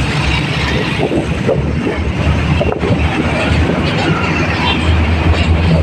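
Loaded truck on the move, heard from its open rear deck: a steady low engine drone under road and wind noise.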